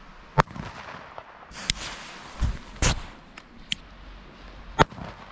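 Firecrackers going off on asphalt: a ragged run of about seven sharp bangs of uneven loudness. The loudest come about half a second in, just before three seconds, and near the end.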